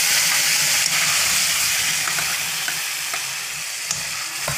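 Wet onion, ginger, garlic, green chilli and tomato paste sizzling in hot oil in a kadhai just after being poured in, the sizzle slowly dying down as it settles. A couple of light clicks near the end.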